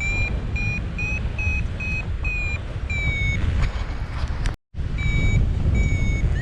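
Paragliding variometer beeping its climb tone, about three short beeps a second, over heavy wind noise on the microphone; the beeps signal the glider is rising in lift. The beeps pause a little after three seconds in, and all sound cuts out for a moment just after four and a half seconds.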